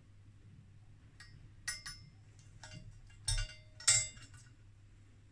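Metal parts of a cavity filter clinking and tapping as the lid and coil boards are worked during desoldering: about six sharp clicks, the loudest two about three and four seconds in, one with a short metallic ring and a dull knock.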